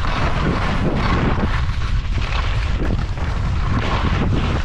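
Heavy wind noise buffeting the microphone during fast downhill skiing, over the continuous scraping hiss of skis carving across hard, icy, chopped-up spring snow.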